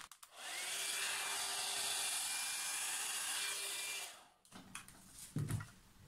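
Hair dryer blowing on wet acrylic pour paint for about four seconds, a steady rush of air with a faint whine, to blow the bloom out; it switches off suddenly, followed by a couple of soft knocks.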